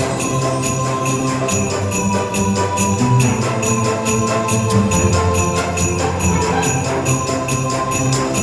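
Instrumental Christmas music with jingle bells shaken in a steady rhythm, about four strokes a second, over sustained melody and bass.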